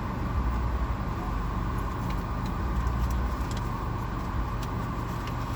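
Car engine and cabin noise heard from inside the car: a steady low rumble as it idles or creeps forward in a drive-thru line, with a few faint clicks.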